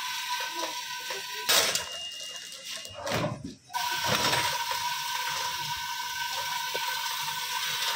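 An automatic nail packing machine runs with a steady whine and hiss while it weighs out 100-gram portions of nails. Two louder bursts come about a second and a half and three seconds in, after which the steady running sound resumes.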